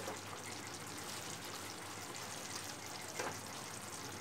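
Thick chicken curry gravy sizzling and bubbling in a pan as a wooden spatula stirs it, with one brief louder scrape about three seconds in.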